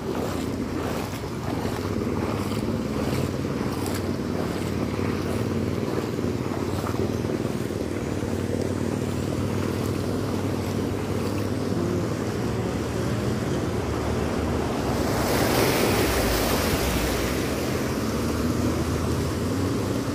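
Vehicles wading through floodwater on a road: a steady engine hum under the wash and slosh of water, with a louder rush of water swelling about fifteen seconds in and fading after a few seconds.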